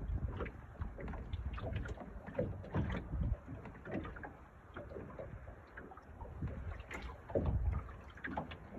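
Wind buffeting the phone's microphone in uneven gusts, over small waves lapping on choppy lake water.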